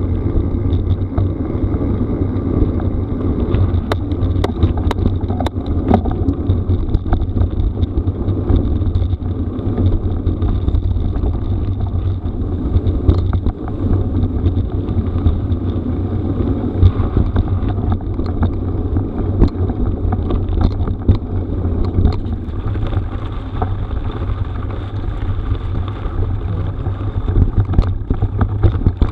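Mountain bike ridden fast down a rough gravel forest road: loud wind rumble on the camera microphone over the hiss of tyres on gravel, with many scattered clicks and rattles from stones and the bike.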